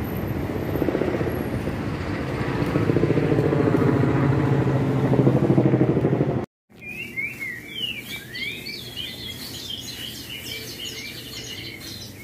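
Motor vehicle passing close by on the road, its engine hum and tyre noise swelling over several seconds. After an abrupt cut about halfway through, birds chirp busily in quick, repeated calls.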